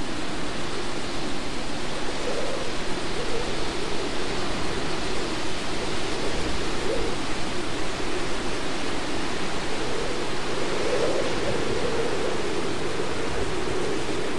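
Hurricane wind, a steady dense rushing noise, with a low wavering tone that swells twice and falls back.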